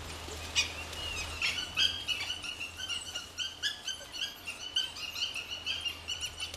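Dhole pups begging adults for food with a rapid run of short, high-pitched squeals and whines, several a second.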